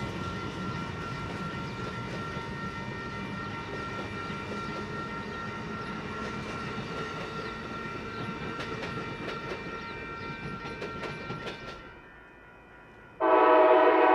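Amtrak Superliner passenger cars rolling past, wheels clicking over the rails with a thin steady ring above the rumble. Near the end a locomotive air horn sounds a loud multi-note chord.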